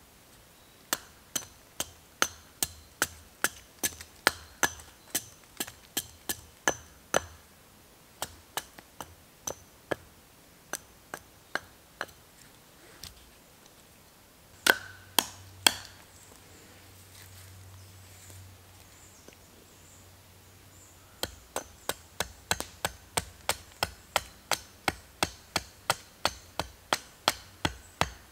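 A small hatchet chopping into a log with short, light strokes, each a sharp knock on the wood, about two a second. It pauses midway after a few harder strikes, then resumes faster, about three a second.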